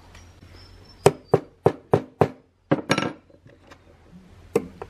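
Hammer tapping on metal in sharp strikes: five quick taps about three a second, then a short cluster of taps and one last tap near the end.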